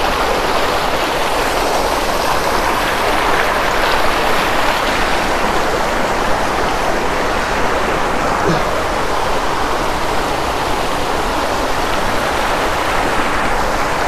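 Water pouring down a rocky waterfall close by: a loud, steady rush of water noise that does not let up.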